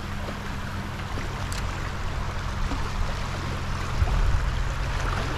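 Shallow tidal water running and lapping across a sand flat: a steady rushing with a low hum beneath it, and a low rumble that swells about four seconds in.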